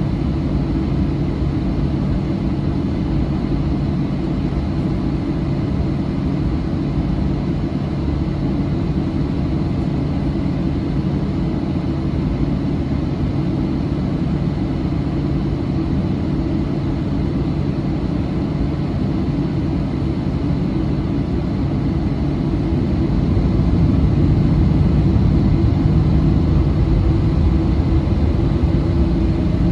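Cabin noise of a Boeing 737-700 taxiing: its CFM56-7B turbofan engines run at low taxi power as a steady low drone. About three-quarters of the way through it grows a little louder and the pitch shifts.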